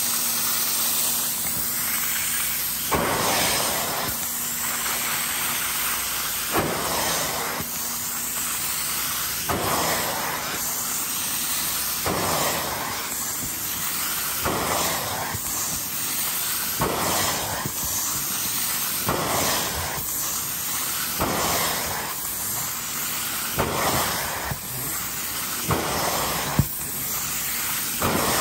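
Hot-water extraction cleaner drawing suction through a clear plastic upholstery hand tool: a steady hiss, with a surge about every two and a half seconds as each stroke is pulled across the sofa cushion fabric.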